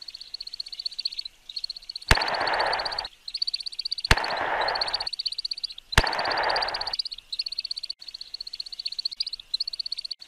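A high, rapid animal trill repeating in runs of about a second with short breaks. Three sharp clicks, about two seconds apart, each followed by about a second of loud hiss that stops suddenly, are the loudest sounds.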